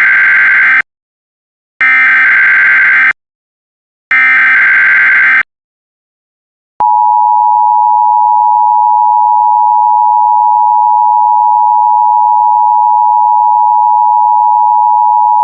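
Emergency Alert System tones: three short bursts of SAME header data tones, each about a second long with a gap between, followed about a second later by the EAS two-tone attention signal (853 and 960 Hz together), a steady dual tone held for about eight and a half seconds that cuts off sharply. Together they announce an incoming alert, here a tornado warning.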